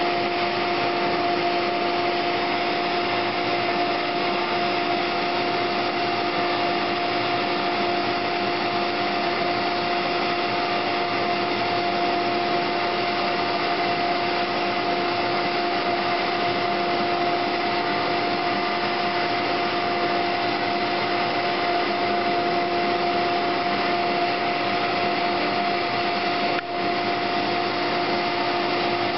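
Router spindle on a Pilot Pro CNC router running at steady speed while V-carving wood: a steady whine over a rushing hiss, dipping for an instant near the end.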